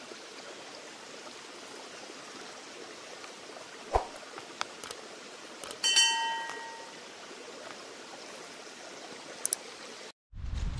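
A steady hiss runs under the whole stretch. Over it come a few sharp clicks and a knock from the subscribe-button animation, then a short bell-like notification chime about six seconds in that rings briefly and fades.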